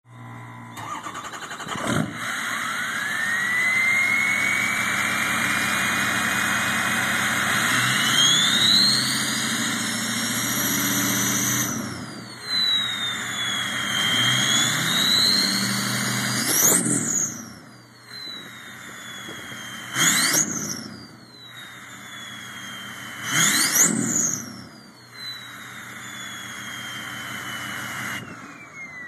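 A 2006 Ford F-250's 6.0 Power Stroke V8 turbodiesel, with a 2003 turbo swapped in and a 4-inch straight-piped exhaust with no cat and no muffler. It fires up about two seconds in and runs with a turbo whistle that climbs as it spools. It is then revved several times, the whistle shooting up with each rev and falling away as the engine drops back to idle.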